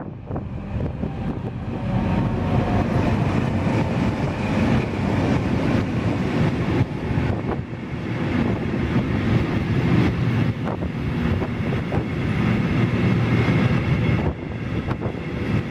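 Passenger train of Intercity coaches hauled by an NS 1700 class electric locomotive rolling past: a steady rumble of wheels on rail, with a few clicks.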